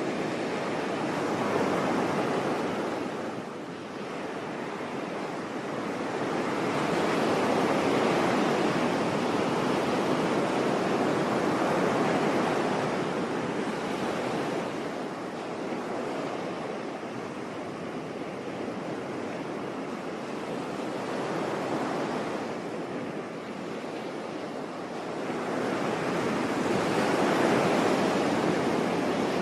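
Sea waves washing onto a shore in a steady hiss that swells and ebbs over several seconds, about four slow surges in all.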